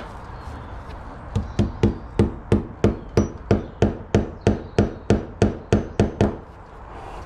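Claw hammer tapping a cable clip's nail into a brick wall to fix a telephone cable: a steady run of about fifteen quick, light strikes, roughly three a second, starting about a second and a half in.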